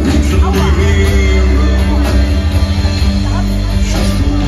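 Live band playing amplified music through a PA, heard from within the audience in the hall: a loud, heavy bass line under held chords, with a voice singing.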